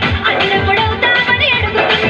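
Loud dance music with a fast, steady beat and a gliding melody line.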